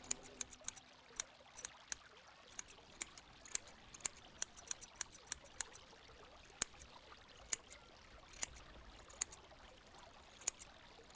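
Sparse, sharp high-pitched clicks or ticks at irregular intervals, a few a second, over a faint steady hiss.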